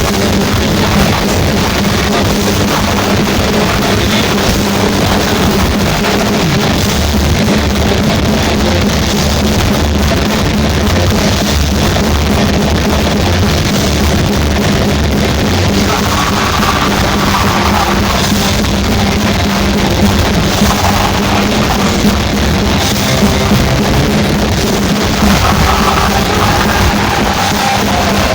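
Heavy metal band playing live and loud, with a full, dense wall of drums and electric guitars.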